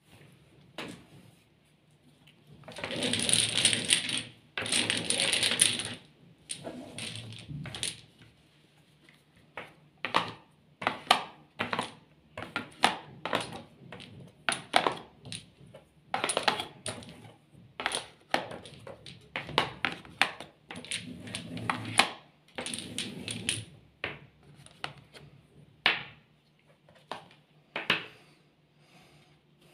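Domino tiles clattering and clicking against each other and the table. There are two longer clattering stretches about three to six seconds in, then many separate sharp clicks as tiles are drawn from the pile, stood in the racks and laid down.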